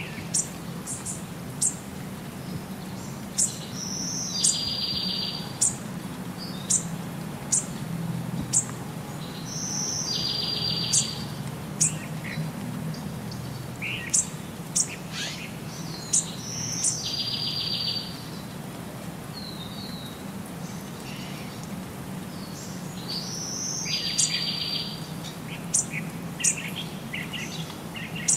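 Small birds chirping, with one song phrase coming back about every six to seven seconds: a short whistle, then a buzzy trill lasting about a second. A steady low hum runs underneath.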